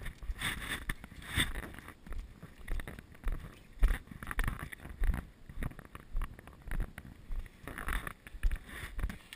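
Footsteps of someone walking on a concrete path, heard as regular low thuds about twice a second, with wind rumbling on the microphone.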